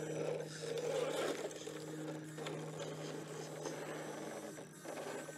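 Radio-controlled scale rock crawler driving slowly up a sandstone ledge: a steady low electric-motor and gearbox whine with scraping and crunching of its tyres on the rock.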